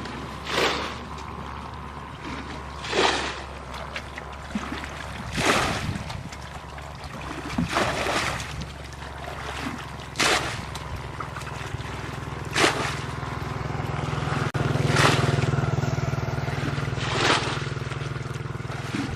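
Water splashing in short swishes at an even pace, about one every two and a half seconds, over a steady low hum that grows louder in the second half.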